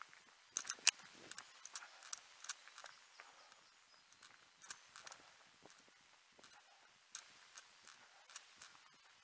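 A runner's footfalls on a path, heard as light, irregular taps and clicks that are sharpest in the first couple of seconds.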